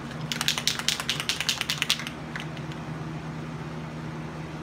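Aerosol spray-primer can being shaken, its mixing ball rattling fast, about eight rattles a second for a little under two seconds. A steady hum from a box exhaust fan runs underneath.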